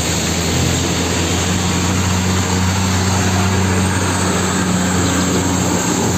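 Concrete mixer truck's diesel engine running steadily as the truck moves slowly along, a constant low hum with no change in pitch.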